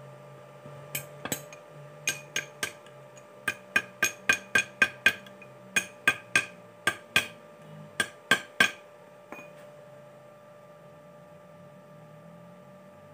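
A metal hand tool taps and chips at a fresh weld on a small steel part clamped in a bench vise, knocking off the welding slag. It gives about twenty sharp, ringing metal-on-metal strikes in uneven runs of two or three a second, stopping about two-thirds of the way through. A steady hum runs underneath.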